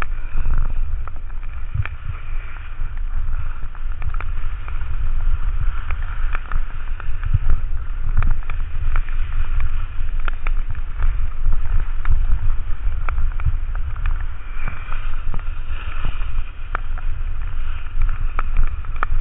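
Wind buffeting the microphone of a camera carried downhill by a skier, over a continuous hiss of skis running on wet snow, with scattered sharp ticks throughout.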